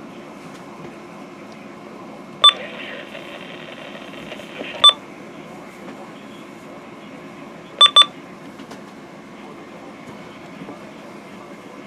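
Weather radio receiver putting out a low, steady hiss and hum of dead air between broadcasts, broken by four short electronic beeps: one about two and a half seconds in, one near five seconds, and a quick pair near eight seconds.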